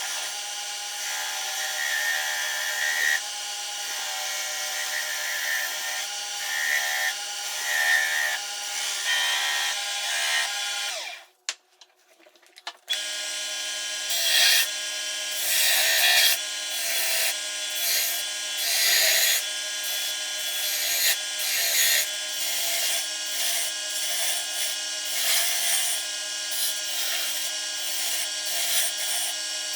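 A power tool running steadily while working wood, with repeated louder surges as the work is pressed against it. The sound cuts out briefly about eleven seconds in, then resumes.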